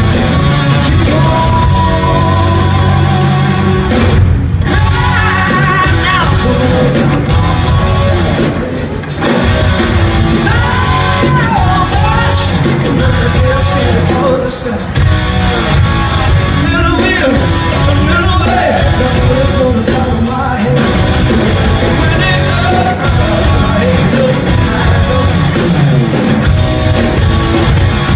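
Live rock band playing with a singer belting over loud electric guitars and drums, heard in a large arena as recorded from the crowd.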